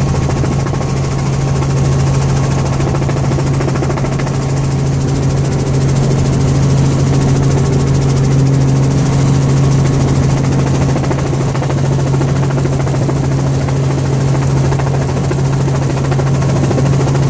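Steady engine and rotor noise heard inside the cabin of a small helicopter in flight, with a strong, even low hum.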